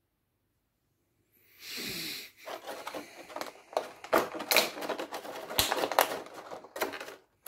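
Clear plastic accessory packaging crinkling and crackling with many sharp clicks as hands work the spare parts out of it, starting about one and a half seconds in.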